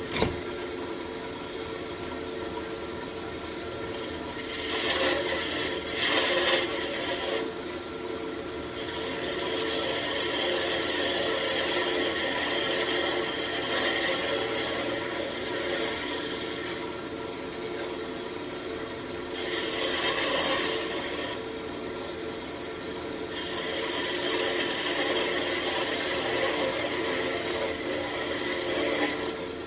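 Wood lathe running with a steady hum while a tool is held against the spinning walnut wand blank in four passes, each a hissing scrape. The second and last passes are the longest.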